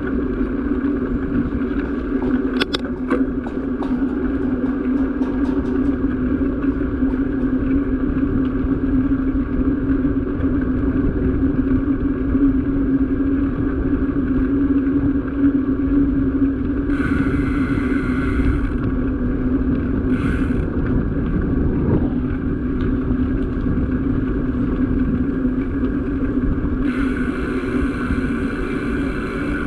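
A small vehicle's engine running steadily at low speed as it drives along a rough concrete road, with road and wind noise underneath. A higher hiss comes and goes twice in the second half.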